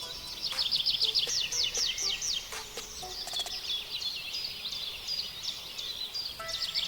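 Wild birds singing: fast trills of short, falling chirps that come densest about a second in and again near the end.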